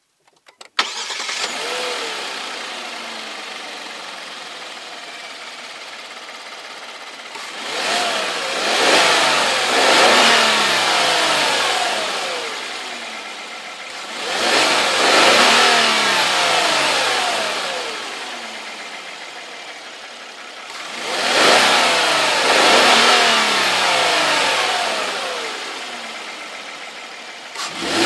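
Kia K900's V6 GDI petrol engine, heard from the open engine bay, catches about a second in and idles, easing down from a fast idle. It is then revved three times, each rev climbing and falling back over several seconds, with a fourth rev starting at the end.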